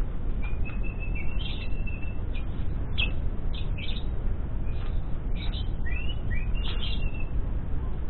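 Lovebird chirping: many short, sharp high chirps, with two longer held notes, the first starting about half a second in and the second near the end, over a steady low rumble.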